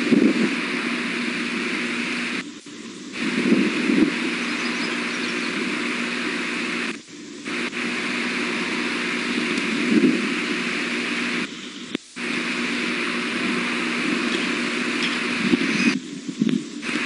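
Steady hiss and low hum from an outdoor nest-cam microphone, with low rumbling swells like wind buffeting it. The sound drops out briefly four times, about every four and a half seconds.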